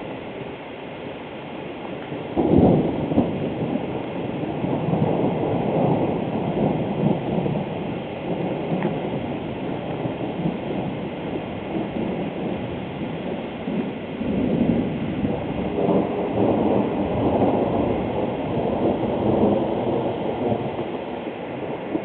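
Thunder: a sudden loud clap about two and a half seconds in, then a long low rumble that rolls on and swells again in the second half.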